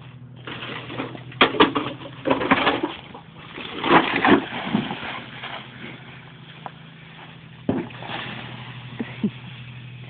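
Microwave oven in creek water, smoking heavily: hissing and crackling in loud bursts over the first five seconds or so, then a fainter steady hiss with a few scattered clicks.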